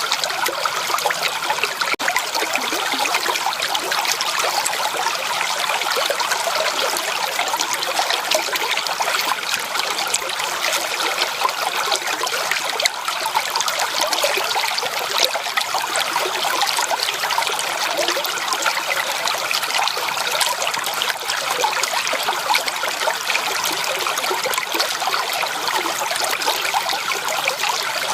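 Shallow creek water trickling and burbling steadily over stones, a constant splashing babble.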